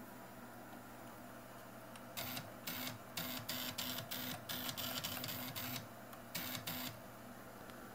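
Stepper motor driving the belt-driven X-axis carriage of a RepRap Prusa II 3D printer along its rods in about a dozen short moves. Each move is a brief buzzing whine lasting a fraction of a second; they start about two seconds in and stop about a second before the end.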